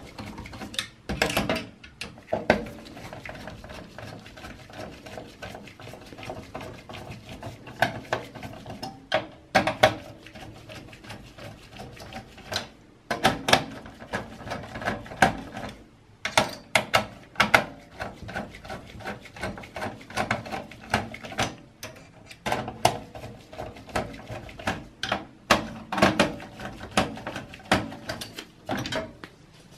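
Screwdriver unscrewing the four screws of a desktop PC's CPU cooler heatsink: irregular clicks and metal clinks as the screws turn and the tool knocks against the cooler and steel case.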